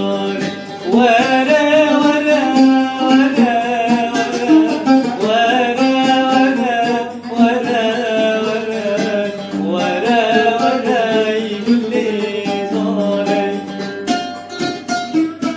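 A man singing a Kurdish song in long, wavering held notes over a plucked-string accompaniment.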